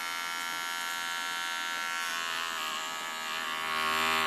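Electric hair clippers buzzing steadily while trimming hair along the neckline at the nape. The buzz shifts in tone and grows louder about three and a half seconds in.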